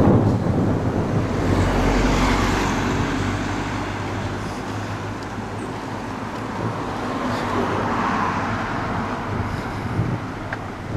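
Road traffic on the street alongside: cars passing, their tyre and engine noise swelling and fading twice, about two seconds in and again around eight seconds.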